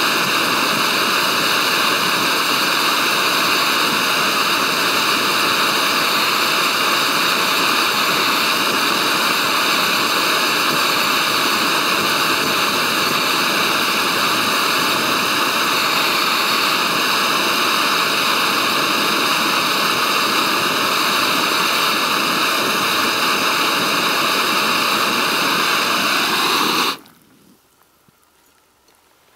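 Small gas canister stove burning under a metal mug: a loud, steady hiss of gas and flame. It cuts off suddenly near the end as the stove's valve is closed.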